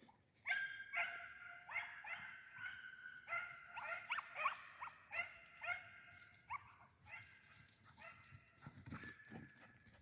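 Hunting dog giving tongue in short, high-pitched yelping barks, about two a second, while working a rabbit's scent in cover; faint, and thinning out toward the end.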